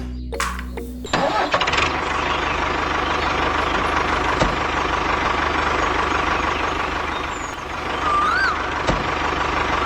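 An engine starts about a second in and then runs steadily at a constant, loud level. Near the end a short warbling whistle rises and falls once.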